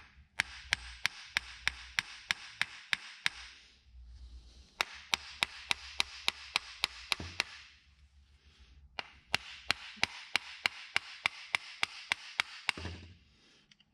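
Rapid hammer blows on the metal housing of a seized automotive A/C compressor to knock the case apart, about four sharp strikes a second in three runs of a few seconds each with short pauses between.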